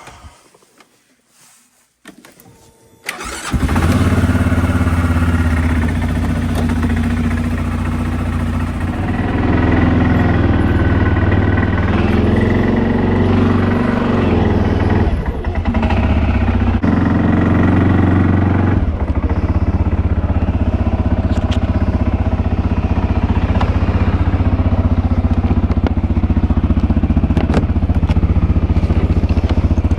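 CFMOTO ATV engine coming in suddenly about three seconds in, then running steadily. Its pitch shifts a few times as it drags a heavy log used as a snow plow through wet snow.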